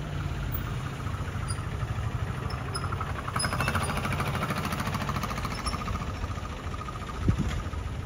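A motor vehicle engine running steadily, growing louder and more rhythmic about three seconds in, then easing off, with a short thump near the end.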